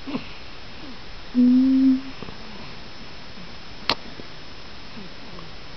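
A short, steady hummed note about a second and a half in, lasting about half a second, then a single sharp kiss on a baby's cheek about four seconds in.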